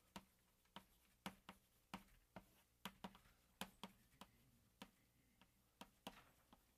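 Faint, sharp taps of writing on a surface, about two a second at an uneven pace, in a quiet room.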